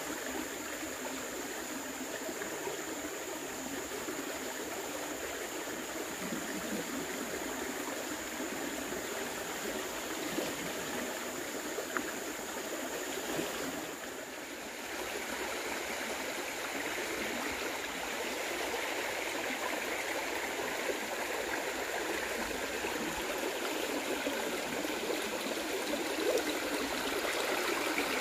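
Steady rush of flowing water, with a thin, steady high whine over it that fades about halfway through.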